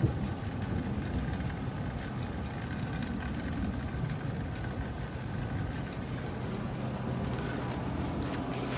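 Steady low rumble of a thunderstorm, with a faint steady hum beneath it.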